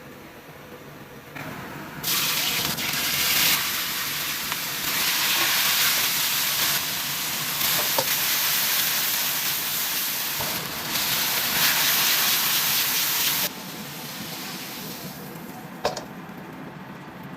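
Mushrooms sizzling as they are stir-fried in a hot pan, a steady hiss that grows louder about two seconds in and drops back down near the end.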